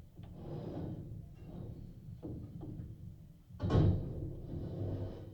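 Muffled thuds and knocks from scaffolding work, heard through the walls of the house, over a low rumble. A louder bang comes about two thirds of the way in.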